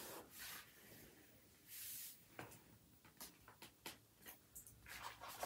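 Faint swishes of hands rubbing and pressing heavy cardstock flat, with a few light taps and clicks of paper against the table.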